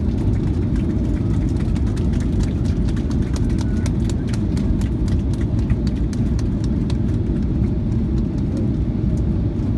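Cabin noise of a Boeing 737-800 rolling out on the runway after landing, with its spoilers up: a steady low rumble with many quick, irregular clicks and rattles over it.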